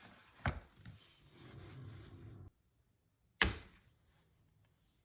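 Two sharp knocks of a Fiskars X11 splitting axe striking firewood, about three seconds apart, the second the louder.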